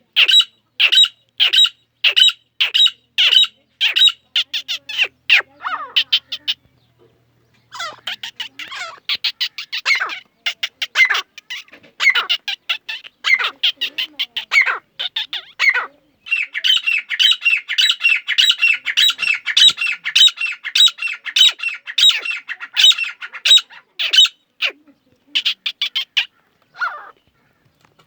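Grey francolin calling: a rapid string of repeated calls at about two a second. There is a short break about six seconds in, then the calls resume and thicken into a dense, continuous run in the middle.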